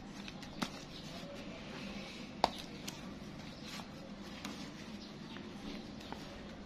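Bundles of crisp new banknotes handled by hand: soft paper rustling with a few sharp snaps and taps as the stacks are picked up and set against each other. The loudest snap comes about two and a half seconds in.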